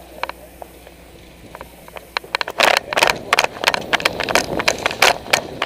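A few scattered clicks, then from about halfway, quick, irregular footsteps of a person running.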